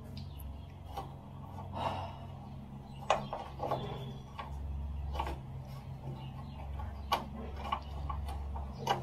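Irregular light clicks and knocks, about one a second, from hands working metal parts inside a VW T2 passenger door cavity. A steady low engine drone from a mini excavator runs underneath.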